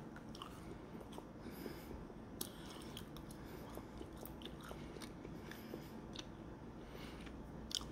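Faint chewing of a soft gummy candy piece, with small scattered mouth clicks.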